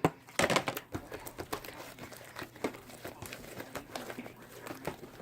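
Slime being squeezed and pulled roughly in the hands, making an irregular run of small sticky clicks and pops, loudest in the first second.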